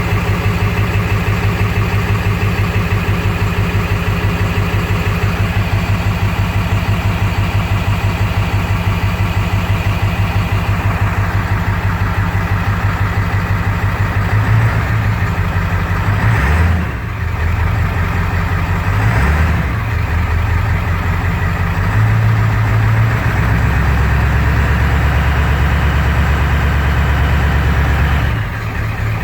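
Engine running at a rough idle just after start, on an untuned fuel map for larger 230cc injectors. Its note shifts and briefly dips several times, most clearly about two-thirds of the way through and near the end.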